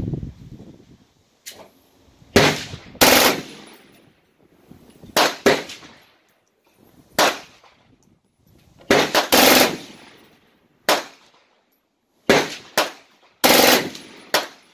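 Replica AN/M2 Browning .30-caliber aircraft machine gun, built as a shoulder-fired Stinger, firing about a dozen short, loud bursts with brief pauses between them.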